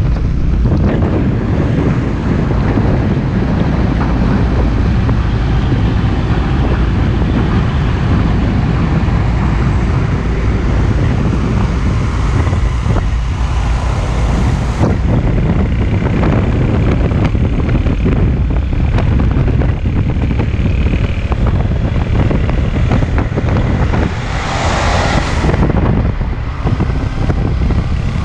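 Heavy trucks running past on a highway, a loud steady low rumble of engines and tyres with wind buffeting the microphone. A short hissing burst comes near the end.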